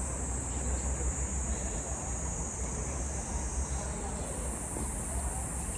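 Wind rumbling on the microphone under a steady, high-pitched insect drone.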